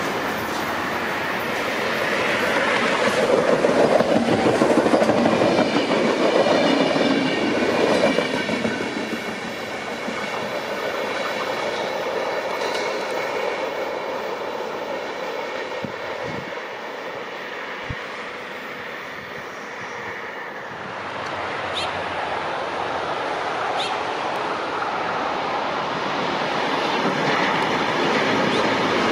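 Renfe UT-440 electric multiple unit passing close by on curved track, wheels clacking over the rails, loudest a few seconds in. A steady high squeal holds through the middle as it draws away. Another train comes on, louder again near the end.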